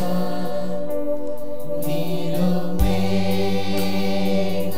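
Church worship music: male voices singing together into microphones over sustained instrumental chords, with a low thump about three seconds in.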